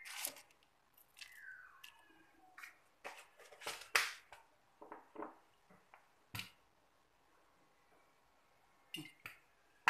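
Light scattered clicks and knocks of kitchen containers and a seasoning shaker being handled over a clay cooking pot, with the sharpest knocks about 4 seconds and 6 seconds in. There are quiet gaps between them.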